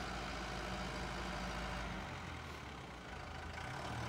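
Farm tractor's diesel engine running at low revs as the tractor drives slowly over sand; the engine note eases off a little about two seconds in and picks up again near the end.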